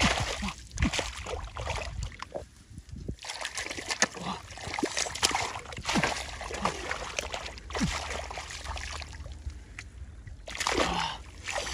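Water splashing and sloshing in irregular bursts, from hands groping in a flooded hole for catfish. There are short lulls about three seconds in and again near the end.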